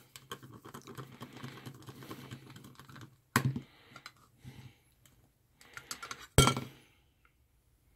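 Light clicks and small metallic taps from screws, a screwdriver and an aluminium leg bracket being handled against a circuit board, with two sharper clicks, one about three seconds in and one about six seconds in.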